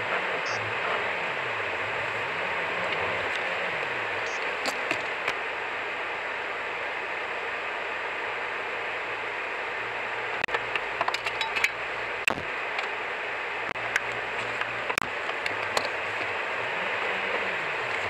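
Steady hiss of a moving car's road and wind noise, picked up by a dashcam inside the cabin. Scattered sharp clicks and ticks come about ten seconds in and again a little later.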